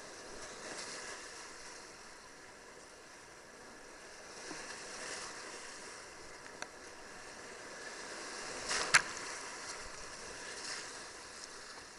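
Rushing, splashing water around a kayak in a whitewater channel, with swells of splash as the paddle strokes. A single sharp knock about nine seconds in is the loudest sound.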